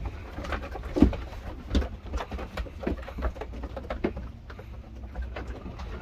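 Boer goat kids milling about on a raised slatted wooden pen floor: irregular hoof knocks and shuffling on the boards, with a few brief low animal sounds.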